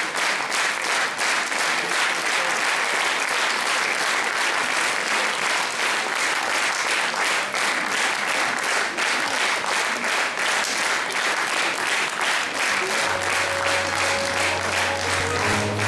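Audience applauding steadily. Music starts up under the applause near the end, with long held notes.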